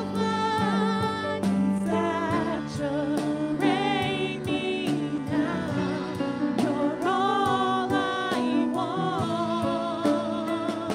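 Live contemporary worship song: two women singing lead and harmony with vibrato, over an upright piano and a drum kit with cymbals.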